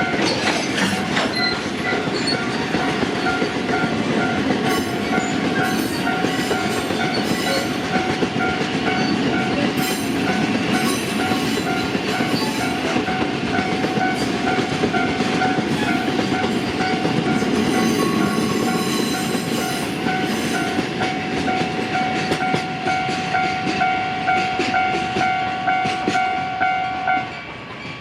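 A Japanese level-crossing alarm bell ringing its steady repeated kan-kan while a Sangi Railway train rolls over the crossing, its wheels clacking over the rail joints. The bell stops near the end.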